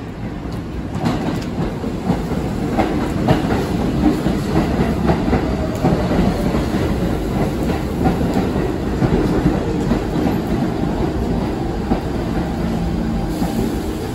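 NYC subway train running along the track through the station, its wheels clacking over rail joints, with the noise building in the first second and then holding loud and steady.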